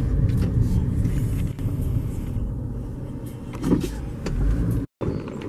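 Car driving slowly, its road and engine rumble heard from inside the cabin. The sound breaks off for a moment near the end.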